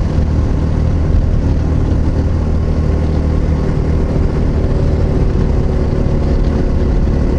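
Yamaha XT660Z Ténéré's single-cylinder engine running steadily at highway cruising speed, with wind rushing over the microphone.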